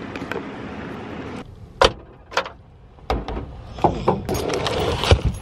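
A handful of sharp clunks and knocks with rustling between them, the handling sounds of getting into a car and shutting its door.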